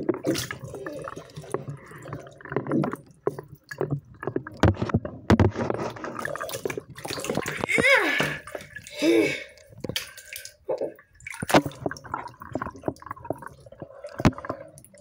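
Toys being moved through water in a plastic tub: splashing and sloshing, with many small knocks against the plastic.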